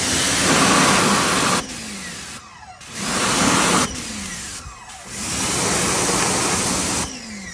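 Pressure washer spraying water onto a motorcycle's engine and exhaust pipes in three long bursts. Each burst stops abruptly and is followed by a falling whine.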